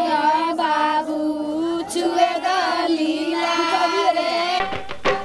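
A high voice singing a slow, drawn-out melody. About four and a half seconds in it cuts abruptly to a music track with a steady, quick beat.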